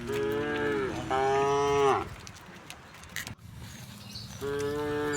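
Cows mooing: three moos of about a second each, the second louder and higher than the others, each dropping in pitch as it ends.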